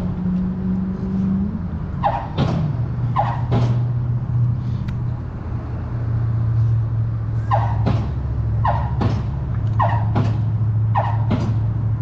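Pile driving at a bridge: sharp clanging hammer strikes on a piling, a few at first, then a steady run of blows about a second apart after a pause of a few seconds. Under them runs the steady drone of the rig's engine, which the angler calls an annoying noise.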